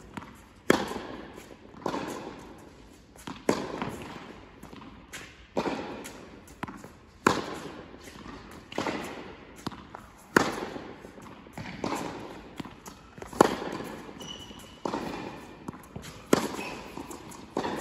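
Tennis ball struck by racket strings and bouncing on a hard court in a rally: a sharp pop about every second and a half, each ringing on in the echo of a large indoor tennis hall.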